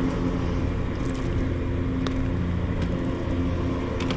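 A boat motor running steadily: a low, even hum with a few faint clicks over it.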